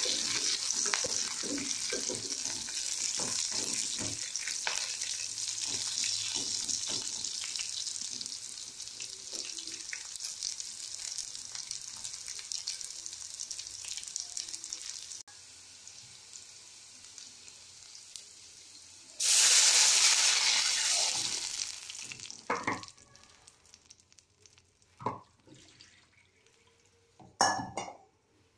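Sliced onions, green chillies and curry leaves frying in oil in an aluminium kadai, sizzling steadily while a wooden spatula stirs with frequent knocks against the pan. About two-thirds of the way through, a sudden loud hiss as water goes into the hot oil, dying away over a few seconds, followed by a few separate knocks.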